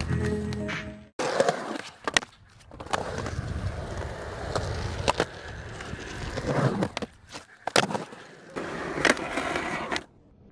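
Skateboard wheels rolling on concrete, broken by sharp cracks of the board popping and landing, over several short skating clips. A held musical tone cuts off about a second in.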